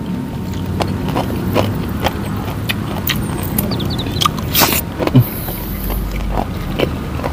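Close-up eating sounds: chewing, lip smacks and scattered clicks as dry smoked fish is torn apart by hand, over a steady low background rumble.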